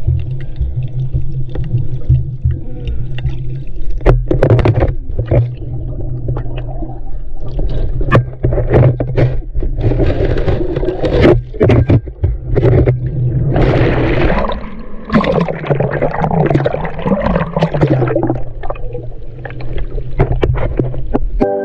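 Sea water surging and churning around an underwater camera as a wave breaks over the snorkeller. There is a steady low rumble, frequent sharp knocks and bubbling rushes of water, which grow strongest in the second half.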